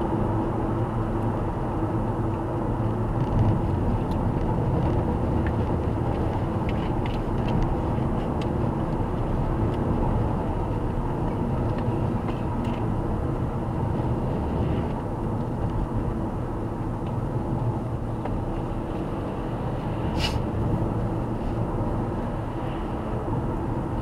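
Steady road and tyre noise with engine hum, heard from inside a car cabin driving at highway speed, with one brief click about 20 seconds in.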